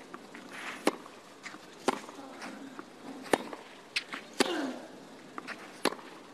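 Tennis rally on a clay court: sharp racquet-on-ball hits traded back and forth about once a second, some shots followed by a player's short grunt.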